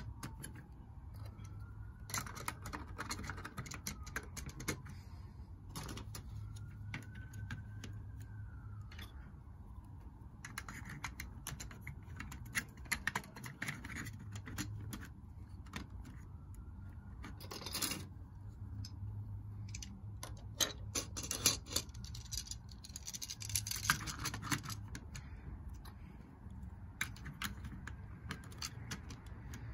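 Hard plastic marble-run track pieces and tubes clicking and rattling as they are fitted together and pressed into place by hand, in irregular clusters of small clicks.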